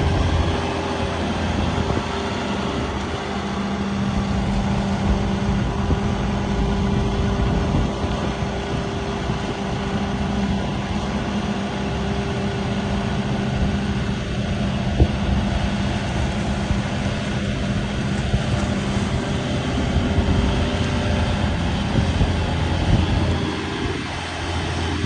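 John Deere 250G excavator's diesel engine running steadily, its hum shifting in pitch a few seconds in and again near the end.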